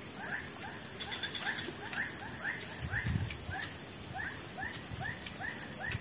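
An animal's short chirping call, repeated evenly about twice a second.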